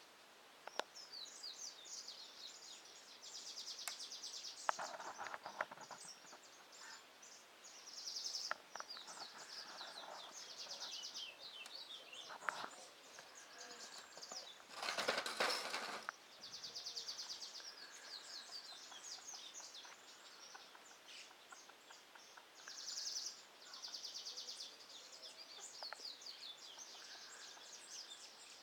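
Small songbirds chirping and singing fast, high trills again and again. About halfway through, a louder rushing noise lasts a second or two, and a few sharp clicks sound now and then.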